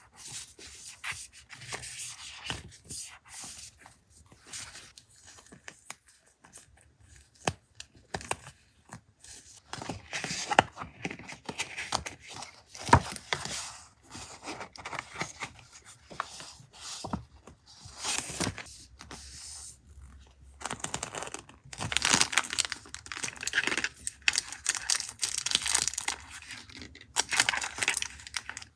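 Paper being torn and handled for a collage: irregular rips and rustles with small taps, busier and louder in the second half.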